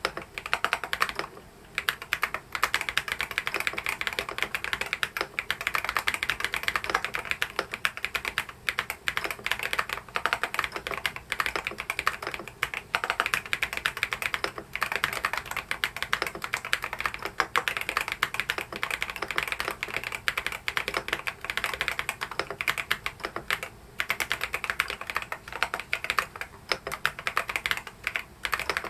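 Fast, continuous typing on an EPOMAKER DynaTab 75 mechanical keyboard: a dense run of key clacks, broken by a few brief pauses, the first about a second and a half in.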